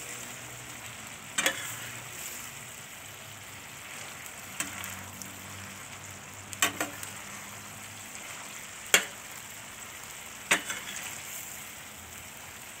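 Intestines and basil leaves sizzling in a thick yellow spice sauce in a metal frying pan while a spatula stirs them. Now and then the spatula clinks sharply against the pan, about five times, loudest about nine seconds in.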